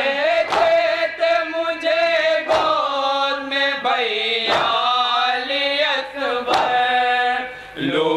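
A group of men singing a noha lament in unison with long held notes, without instruments. Sharp claps from the mourners beating their chests (matam) mark the rhythm, the strongest about every two seconds.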